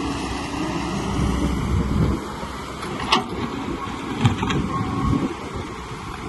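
Heavy machinery engine running with a low rumble that eases off about two seconds in, with a sharp clank about three seconds in and a couple more around four seconds.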